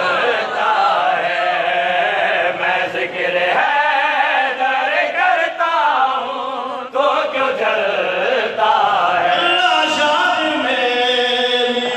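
A group of men chanting a devotional Urdu manqabat together, with a lead voice on a microphone.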